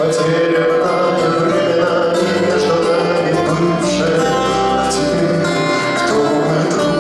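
Music: a song with acoustic guitar and a singing voice.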